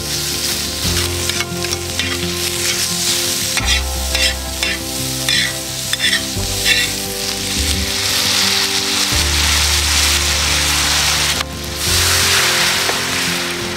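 Food frying and sizzling in a pan, a steady hiss throughout, with a run of light clicks and scrapes from a utensil stirring it about four to six seconds in.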